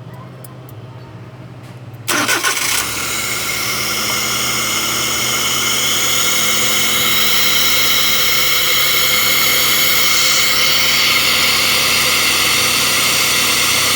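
Suzuki Carry DA64W's 660 cc three-cylinder engine starting: a few faint clicks, then it catches about two seconds in and settles into a steady idle. It runs now that the grounded ECU wire that kept blowing the EFI fuse has been fixed.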